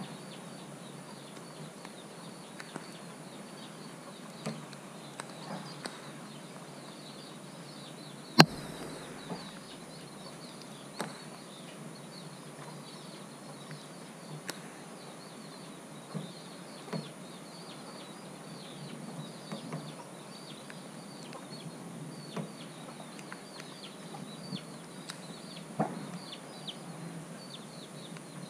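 Outdoor ambience of many short bird calls and chirps, with scattered soft ticks and one sharp click about eight seconds in.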